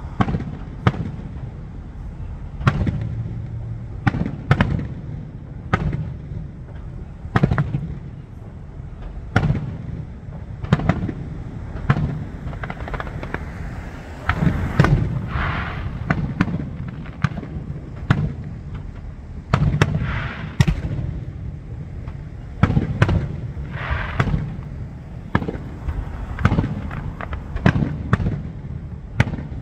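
Aerial fireworks shells bursting one after another in a show, sharp booms about every one to two seconds, each trailing off in a low rumbling echo.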